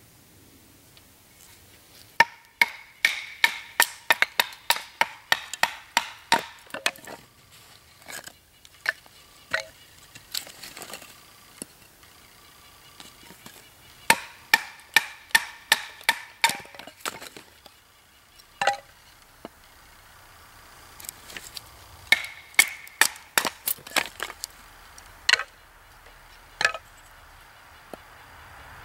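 Fixed-blade knife chopped repeatedly into the end of an upright wooden stick resting on a stump, splitting it. Sharp wooden knocks at about three a second come in three runs, with a few single knocks in between.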